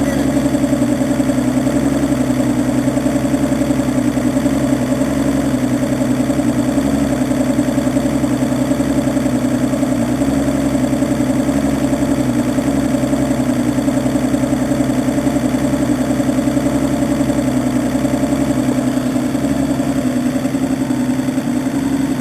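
Evinrude E200 outboard's V6 two-stroke engine idling steadily. It runs smoothly once started, but it will only start with fuel poured straight into the cylinders. The owner suspects a fuel delivery problem such as the fuel filter or fuel pump.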